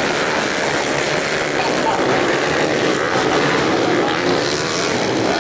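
Engines of a pack of dirt bikes racing on a motocross track, blending into one steady drone.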